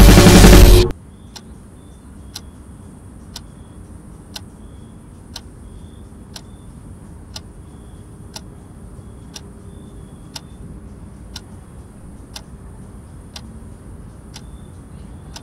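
Loud music cuts off suddenly about a second in, leaving a clock ticking steadily once a second over a faint high hiss.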